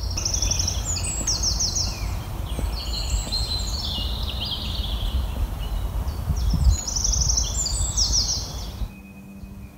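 Wind buffeting a phone's microphone as a heavy low rumble, with small songbirds singing repeated high, rapid trilled phrases over it. The wind noise drops away near the end.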